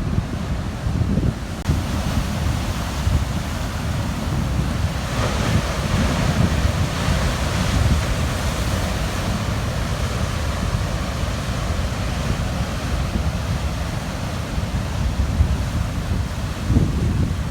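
Large Atlantic waves breaking on a rocky shore at high tide, with a wave crashing and washing over the rocks about five seconds in. Strong wind buffets the microphone as a low rumble throughout.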